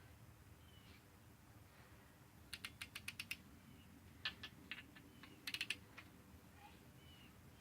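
Ratchet wrench clicking in three short runs of quick clicks, the first of about seven clicks, over a few seconds against near silence.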